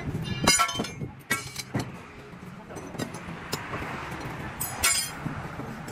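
Metal tools or parts clinking and knocking: about six sharp metallic clinks with a short ring, the loudest about half a second in and near the end, over a low steady hum.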